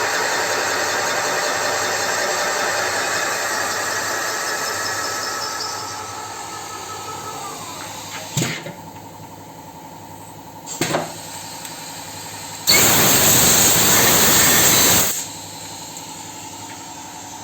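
A metal-cutting machine boring valve-seat pockets in a cylinder head runs steadily, then winds down, its pitch sliding lower. Two short puffs follow, then a loud blast of compressed air about 2.5 s long, as typically used to blow out the cutting chips.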